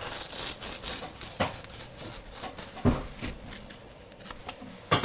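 Wet rubbing and peeling as a monkeyface prickleback eel fillet is skinned and handled by hand on a wooden cutting board, with three knocks on the board, the loudest about three seconds in.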